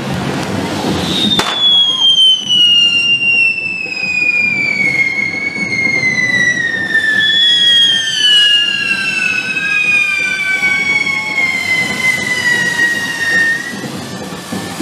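Correfoc fire fountains (carretilles) burning on devils' forks: a rough hiss of spraying sparks with high whistles that glide slowly downward in pitch, a second whistle joining midway.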